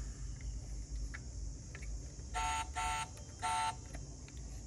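Electronic beeps from a die-cast toy car's sound module: three short buzzy beeps in quick succession a little past halfway, with faint clicks from the car being handled.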